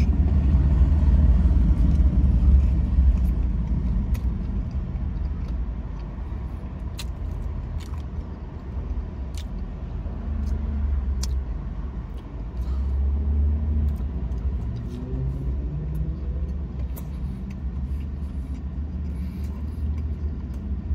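Low vehicle rumble that swells and fades a few times, with faint, scattered wet clicks of chewing and mouth sounds.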